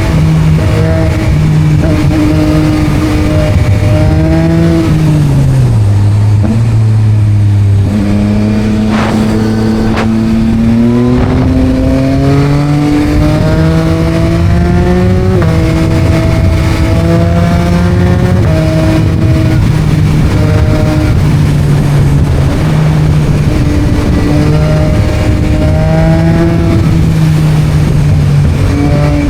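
Yamaha MT-09 inline-three engine running through an Akrapovic exhaust under way in traffic. Its pitch falls about five seconds in, climbs steadily under acceleration, then steps and wavers as the throttle and gears change.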